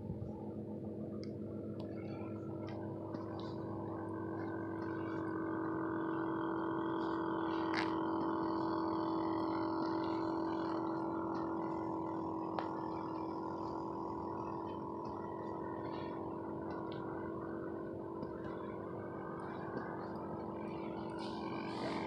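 Small battery-powered aerator pump on a cooler bait livewell, running with a steady hum. A few light clicks sound over it, and near the end a hand handles the plastic cooler lid.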